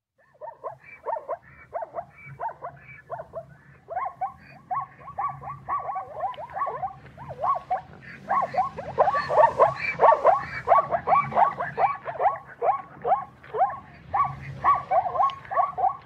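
Zebra calling in a long run of short, rapid calls, several a second, that grow louder from about halfway.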